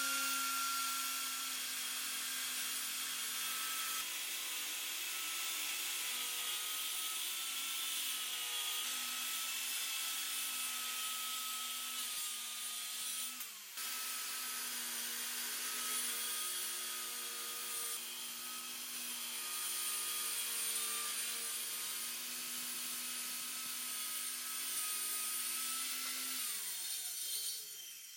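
Makita circular saw running steadily under load as its blade cuts through a glued-up wooden panel along a clamped guide board. There is a brief break about halfway, and near the end the trigger is released and the motor winds down with a falling pitch.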